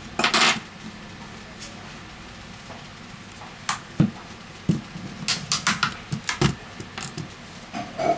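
Plastic back cover of a Xiaomi Redmi Note 5A being pried off with a plastic opening pick: a series of sharp clicks and snaps as its clips let go. They are scattered at first and come in a quick run a little past halfway.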